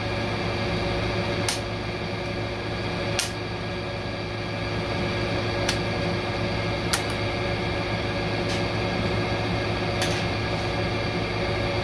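About six sharp, separate clicks of a small screwdriver against metal at the front of a Ford 10R80 ten-speed automatic transmission, around the input shaft, a second or two apart. A steady machine hum runs underneath.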